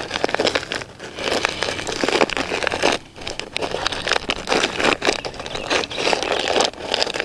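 Heavy paper sand bag being handled and pulled at to open it: irregular crinkling, crackling and scraping of stiff paper.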